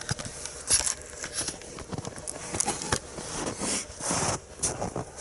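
Irregular crunching and rustling of a person moving through very cold snow.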